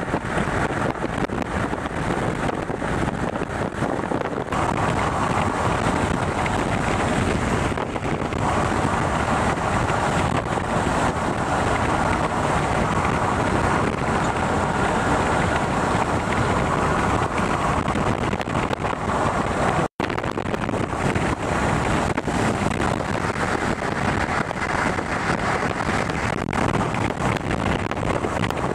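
Steady rush of road and wind noise from a moving car, with wind buffeting the microphone. The sound drops out for an instant about two-thirds of the way through.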